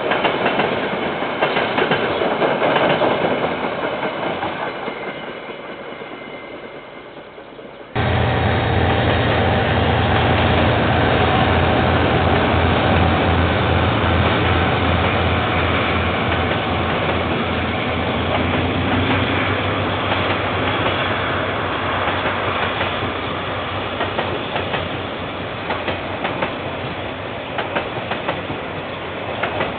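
KiwiRail diesel freight train passing close by. A loud low rumble comes in abruptly about eight seconds in as the locomotive goes by, followed by the steady rolling noise of the freight wagons on the rails.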